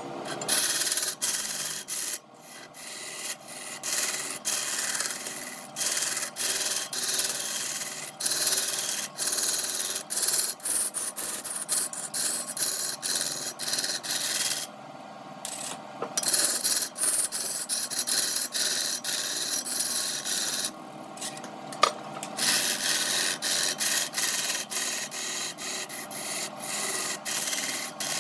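Rough scraping of wood spinning on a lathe, going on in uneven passes with a few brief pauses.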